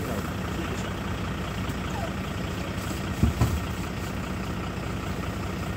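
A pump's motor running steadily with a low, even hum, pumping water out of a swamped boat. Two short knocks come about three seconds in.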